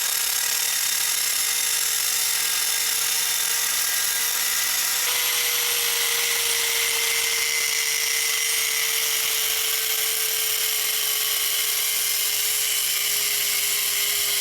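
Electric grinder cutting a shape out of metal plate: a steady high whine over a dense grinding hiss, running without a break and getting harsher about five seconds in.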